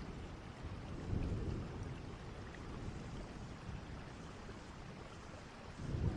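Steady rain with rumbles of thunder, one swelling about a second in and another near the end.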